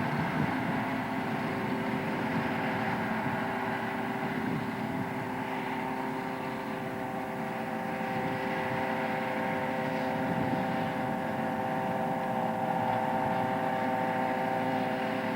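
John Deere self-propelled forage harvester running steadily while chopping maize, a steady whine of several tones over an engine rumble.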